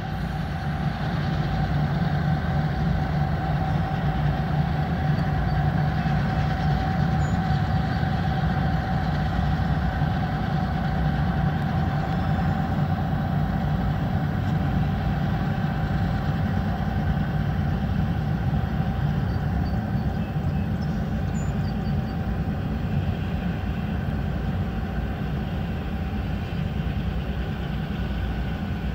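A lash-up of diesel-electric freight locomotives running as the train pulls past: a steady engine drone with a held mid-pitched tone over it.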